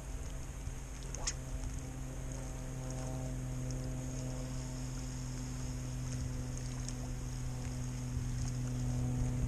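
Steady low motor drone, like an engine running, with a brief rising whistle-like sweep about a second in. A feeder rod is cast near the end.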